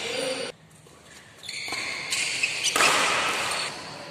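Badminton play in a large sports hall: racket hits on the shuttlecock and footfalls on the court over a steady hall din. The sound cuts out almost to quiet for about a second near the start, then comes back.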